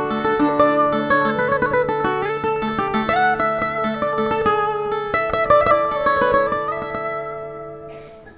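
Portuguese guitar (guitarra portuguesa) and viola (classical guitar) playing an instrumental duet: a fast run of plucked melody notes over a steady accompaniment. The phrase dies away over the last second or so.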